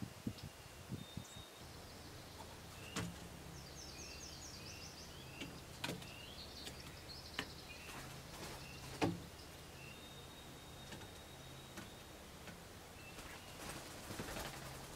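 Quiet outdoor ambience with several birds chirping and calling on and off. A few sharp knocks come about three seconds apart, over a faint low steady hum.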